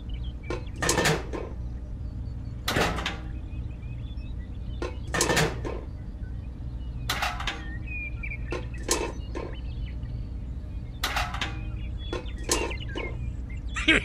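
Scattered small clicks and knocks from plastic and wooden miniature model parts being handled and set down, at uneven intervals over a steady low hum.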